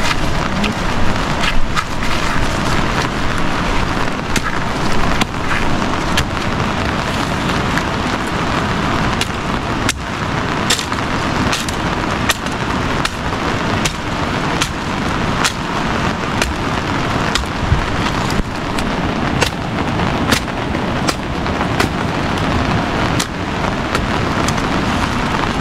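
Steady rain falling on forest foliage, an even hiss broken by many irregular sharp taps of drops.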